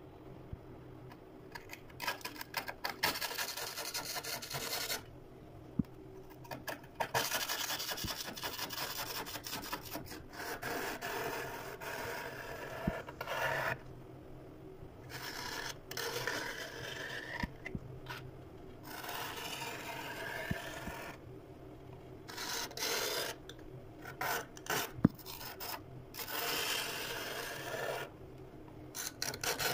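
Soft scraping of thick freezer frost with a thin tool: stroke after stroke lasting a second or two, with short pauses between and quicker, shorter strokes near the end. One sharp click stands out near the end.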